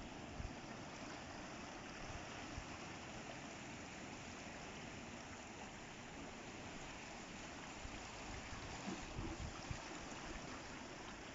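Sea water washing and trickling among the rocks of natural ocean pools, a steady hiss with a few low thumps about nine seconds in.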